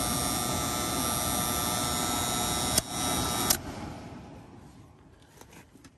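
Electric heat-strip section of an air handler running, with a steady electrical hum and buzz from the worn top heat contactor. A sharp click comes about three and a half seconds in, and the running noise then dies away.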